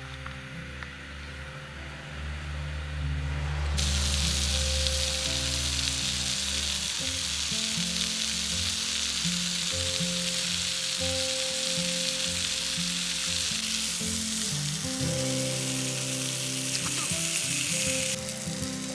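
Food sizzling in a hot pan, the sizzle starting suddenly about four seconds in and continuing steadily, over background music.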